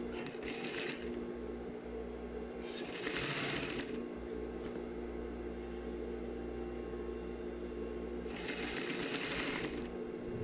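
Industrial single-needle sewing machine stitching in short spells, about three times, with its motor humming steadily in between.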